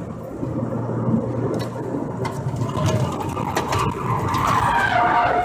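Car driving on a highway, heard from inside the cabin: steady tyre and engine noise with a low hum.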